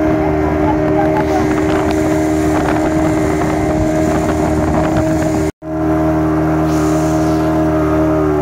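Speedboat engine running steadily at speed, with water rushing and spraying against the hull. The sound breaks off for an instant just past halfway and picks up again unchanged.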